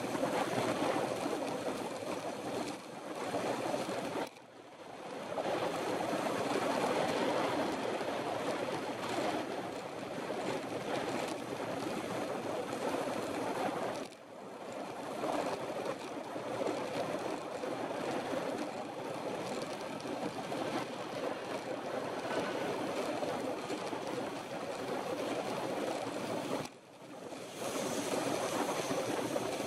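Wind rushing over the microphone of a camera on a road bike's handlebars while riding at speed, a steady rushing noise. It drops away briefly three times, about four, fourteen and twenty-seven seconds in.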